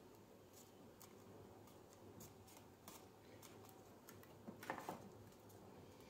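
Faint rustles and crinkles of a cardstock box being folded and its glued tabs pressed down by hand. There is a brief louder crackle of paper a little before the end.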